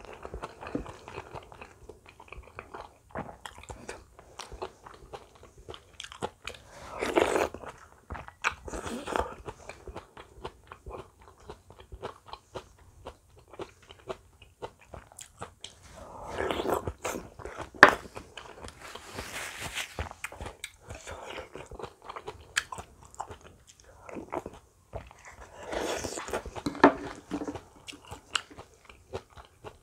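Close-miked chewing and crunching of radish-kimchi fried rice, with wet mouth sounds and irregular louder bites. Now and then a sharp click, loudest about 18 seconds in.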